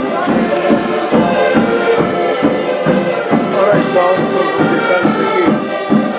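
A small street band playing live, with a steady drum beat under a melody.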